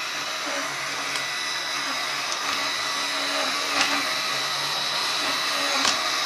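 Gyro flywheel spinning inside the rear wheel of a SkyRC 1/4-scale RC motorcycle: a steady whir with a faint wavering hum under it and a couple of light clicks. It is running too fast, which the owner puts down to the controller driving it flat out.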